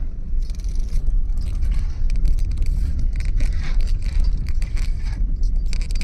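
Car driving slowly over a mud- and gravel-covered road, heard from inside the cabin: a steady low rumble, with scattered scraping and crackling on top.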